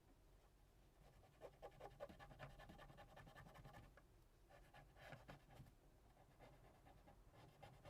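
Faint, rapid scratching and rubbing in two spells of a few seconds each, from cleaning a phone's camera area.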